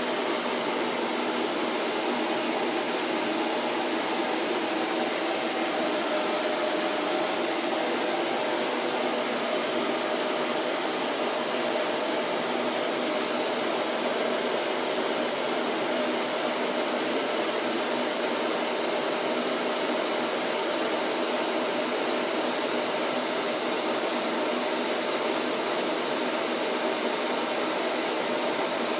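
Vacuum cleaner motor running steadily with an even whooshing hiss and a faint steady hum, unchanging throughout.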